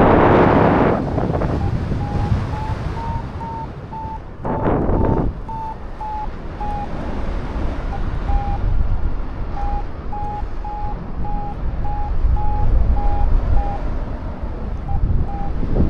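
Strong wind rushing over the microphone, with two louder gusts, one at the start and one about five seconds in. Through it, a flight variometer beeps at about two short beeps a second, its pitch rising a little and then settling back, the sign of the glider climbing in lift.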